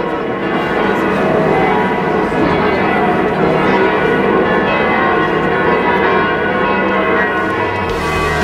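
Church bells from many churches ringing at once in a dense, overlapping peal that echoes across the city.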